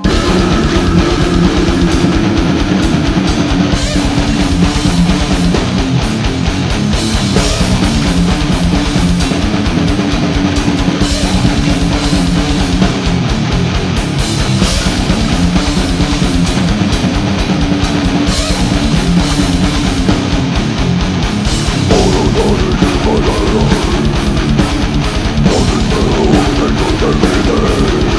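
Death metal band playing live at full volume: distorted guitars, bass and fast, dense drumming.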